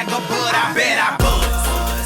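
Music playing: a song with a singing voice over accompaniment, and a deep bass coming in a little past halfway.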